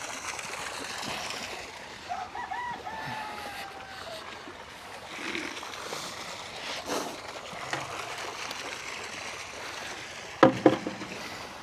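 Two sharp knocks close together near the end, from a 2x4 being knocked back into place as a prop under a piece of barn metal. Earlier, a brief animal call with a slightly falling tone over steady background hiss.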